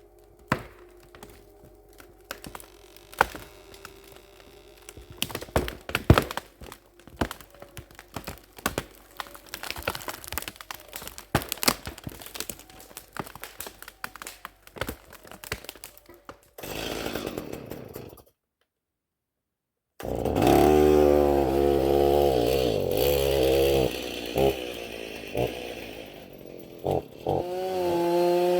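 Many sharp irregular clicks and snaps, then after a short break a chainsaw running and revving up and down for the last several seconds.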